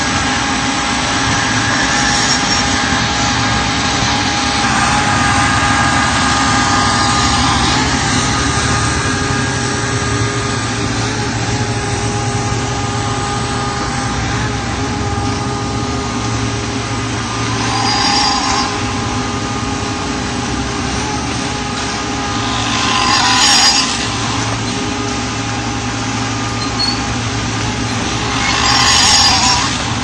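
Concrete mixer pump machine running steadily, a constant mechanical drone with a whine. A louder hissing surge comes three times, in the middle and near the end.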